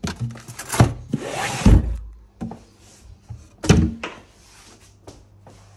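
Handling knocks and thuds as a cutlery case and boxes are closed and put away. There is a short scrape about a second in, and the loudest thumps come at about one and a half seconds and near four seconds.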